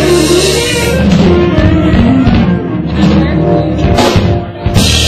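Live band playing a rock-style instrumental, with electric guitar over a steady low bass line and drum kit, with a couple of sharp drum hits near the end.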